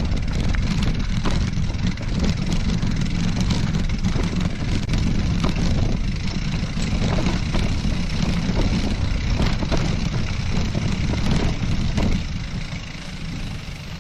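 Wind buffeting the microphone of a camera riding along on a mountain bike, with rattles and knocks from the bike jolting over a rough off-road trail. It eases off about twelve seconds in.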